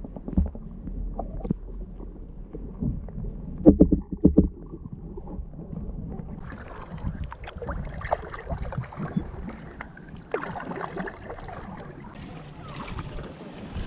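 Muffled, underwater-sounding slosh and gurgle of river water around a submerged camera beside a canoe, with a few sharp dull knocks about four seconds in. After about six seconds the water sound turns brighter and fuller.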